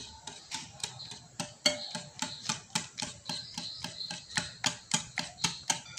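Wire whisk beating a runny egg mixture in a ceramic bowl, the wires clicking against the bowl about four times a second.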